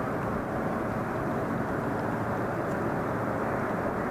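Steady rushing of river water running over a riffle, an even unbroken noise.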